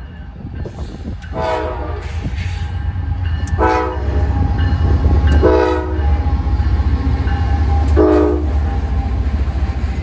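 A CSX diesel freight locomotive sounding its air horn in four short blasts while passing close by. Under the horn its engine runs with a deep rumble that grows louder partway through as the locomotive goes by.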